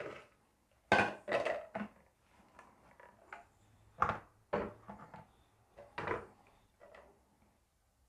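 Clunks and clatter of plastic kitchenware being handled: a blender jar lifted off its motor base and a plastic sieve set over a measuring jug, several separate knocks.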